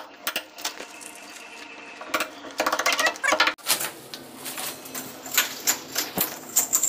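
Hand tool chipping and scraping at concrete and mortar to open up around a buried water pipe: irregular sharp taps, a fast cluster in the middle, then steady strikes about three a second near the end.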